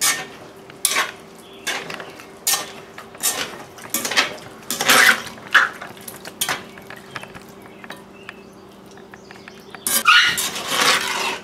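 A metal spoon stirs a stew of beef chunks in wine and broth in a cooking pot, knocking against the pot's sides about once a second. A longer, louder scrape near the end. A faint steady hum underneath.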